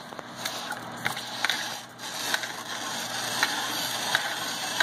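Hand-cranked Pampered Chef Veggie Spiralizer cutting a peeled butternut squash into large noodles: steady crunching and scraping of the blade through the firm squash, with repeated clicks from the crank, louder after about two seconds.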